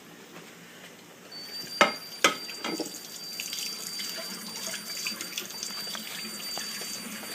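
Kitchen tap turned on about a second in, water running steadily into the sink as a plate is rinsed, with two or three clacks of the plate against the sink early in the rinse.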